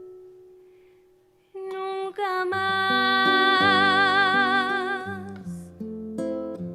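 Live acoustic song with guitar and bass accompaniment. After a brief fade, a singer holds a long final note with wide vibrato for about three seconds, and plucked guitar notes follow as the song closes.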